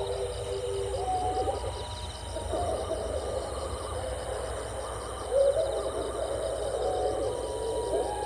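Strange, eerie hoot-like calls at night, several wavering tones overlapping at once. The pitch slides upward about a second in and again about five seconds in. The source is unidentified.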